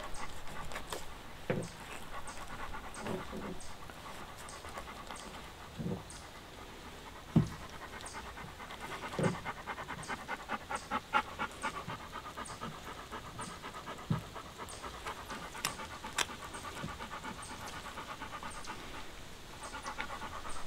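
A dog panting quickly and steadily, with a few soft low knocks as the pheasant carcass is handled on the truck bed.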